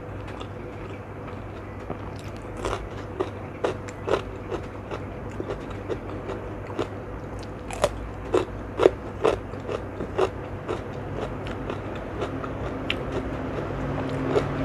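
Crisp crunching of a raw cucumber slice being bitten and chewed close to the microphone, a quick run of crunches that are loudest around the middle, over a steady low background rumble that swells near the end.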